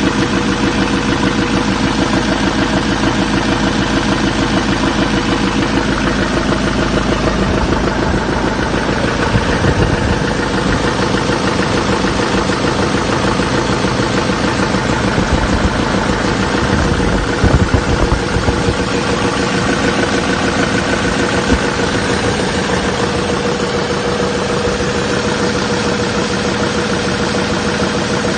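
2007 6.6L LMM Duramax V8 turbodiesel idling with a steady rhythmic knock, the sign of a spun, worn-out crankshaft bearing. There are a couple of brief louder bumps partway through.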